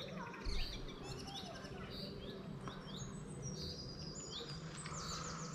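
Birds chirping: many short, high calls repeated throughout, over a steady low hum of background noise.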